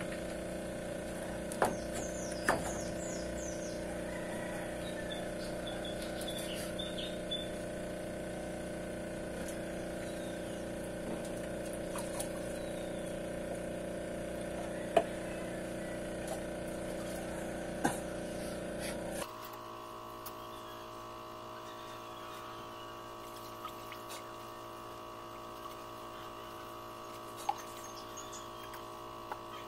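Steady electric hum of aquarium pumps, dropping abruptly to a quieter hum about two-thirds of the way through. A few sharp knocks come through it, and faint bird chirps sound a couple of seconds in.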